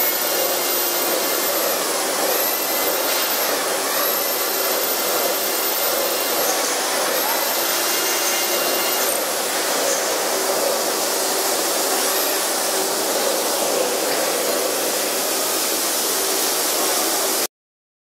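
Leadwell MCV 1300iS vertical machining centre milling a metal block with an end mill under heavy flood coolant: a loud, steady hiss of cutting and coolant spray with a faint hum underneath. A very high whine dips and returns several times. The sound cuts off suddenly near the end.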